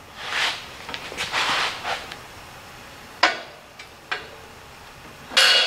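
Welded steel log lift of a home-built log splitter being raised by hand. Metal scrapes and slides for about two seconds, then come two sharp clicks about a second apart. Near the end a loud metal clank rings on as the lift and its lock mechanism settle.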